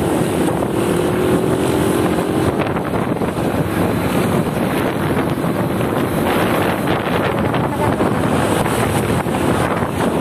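Wind buffeting the microphone of a phone held by a motorcycle passenger, with the motorcycle's engine running underneath as the bike rides through traffic. Loud and steady throughout.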